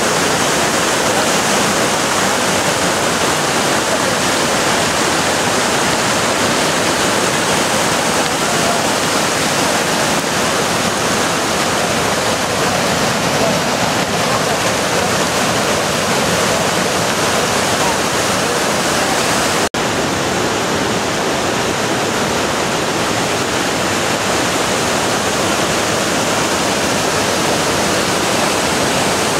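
Roaring River cascading steadily over a jumble of boulders at a waterfall: a loud, even rush of white water, broken by a split-second dropout about two-thirds of the way through.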